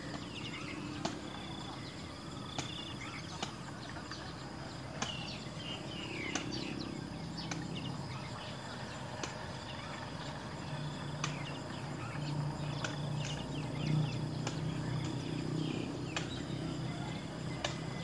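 Short high bird chirps, several sliding downward, come scattered through over a faint steady insect drone. A handful of sharp clicks stand out as the loudest moments.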